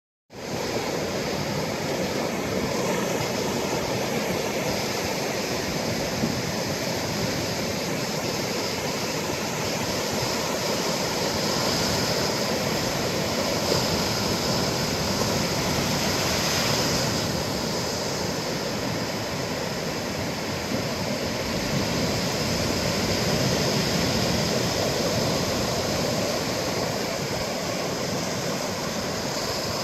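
Ocean surf breaking and washing up the beach: a steady rush that swells and eases as the waves come in.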